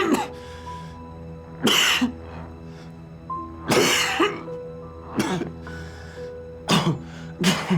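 A person coughing in a persistent fit, about six harsh coughs a second or so apart, over a steady sustained music score.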